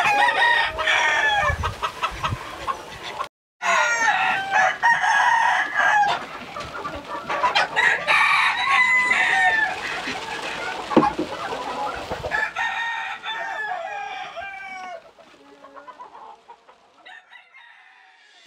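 Hens clucking and calling in repeated, bending calls, around a hen that is about to lay an egg. The sound cuts out for an instant about three seconds in, and the calls drop away to faint about three-quarters of the way through.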